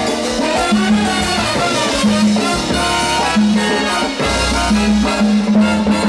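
Live salsa band playing, with a repeating bass line under percussion and horns.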